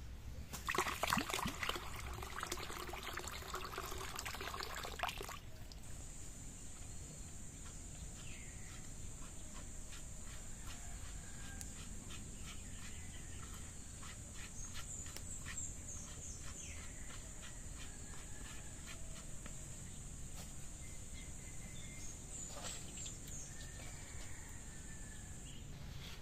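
Water pouring into a plastic pitcher for about five seconds. Then a steady high-pitched insect drone sets in, with a few short bird chirps and faint scattered clicks.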